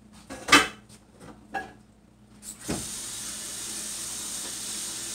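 Two sharp clattering knocks at the kitchen sink, then, about two and a half seconds in, the tap opens and water runs steadily into the sink.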